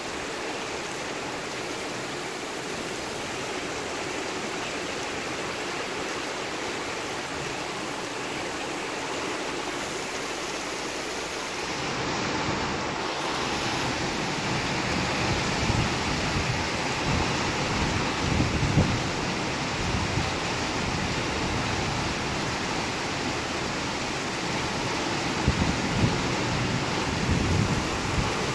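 Torrential rain from a downburst storm, a steady hiss that grows louder about twelve seconds in, with a few deeper surges in the second half.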